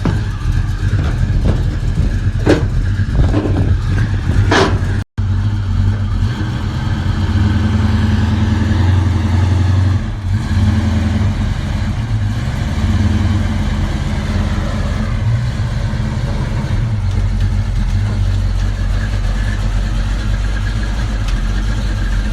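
Big-block Buick 455 V8 running steadily with a deep, even note, with a few sharp knocks in the first few seconds.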